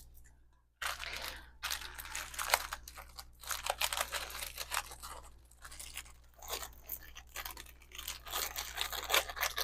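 Packaging crinkling and rustling as it is handled and unwrapped: an irregular run of crackles starting about a second in.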